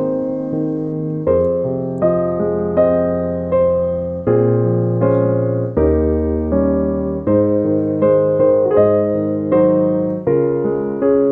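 Background music: a piano playing slow sustained chords, each struck and left to die away, the chord changing every second or so.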